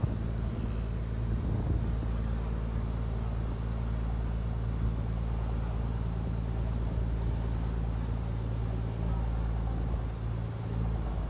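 A bumboat's diesel engine running steadily with an even low drone, over the rushing wash of the boat's wake.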